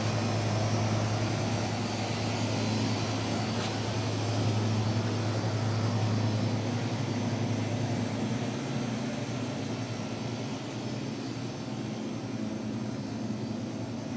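A steady low mechanical hum over a noisy background, its deepest drone fading out about halfway through.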